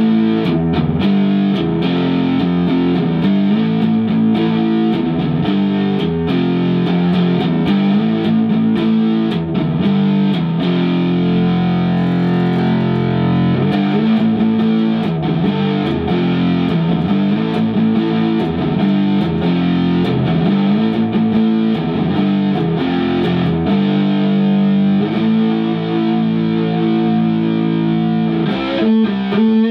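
Telecaster electric guitar played through an amplifier, repeating the same chord riff. The pickups are first wired in parallel (the standard middle position); partway through, the four-way switch moves to the series position, which gives a fat, full, humbucker-like tone with less high end.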